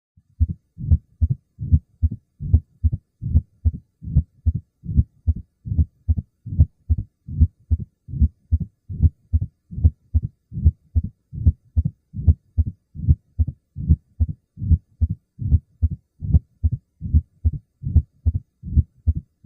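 Heart sounds of a stenosed atrioventricular valve, as in mitral or tricuspid stenosis: a steady, even rhythm of short low thuds, about two and a half a second, starting about half a second in.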